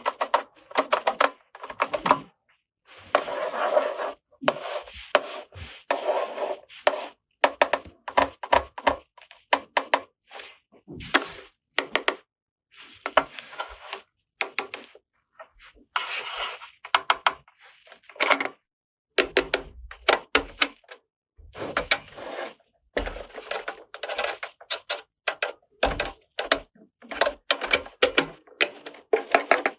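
Small hard plastic toy kitchen pieces being handled, clicked together and set down. The result is rapid irregular clicks, taps and rattles in clusters, with brief pauses.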